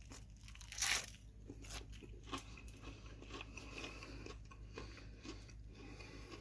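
Close-up crunching as a homemade battered onion ring is bitten, with one loud crunch about a second in, then steady chewing with many small crunches.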